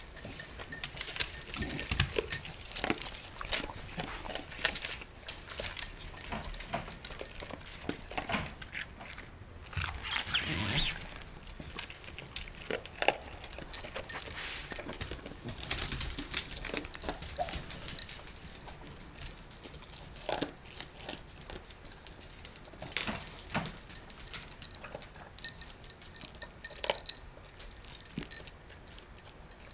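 Cocker spaniel eating from a deep glazed ceramic cocker bowl: many irregular crunches, clicks and knocks of mouth against bowl.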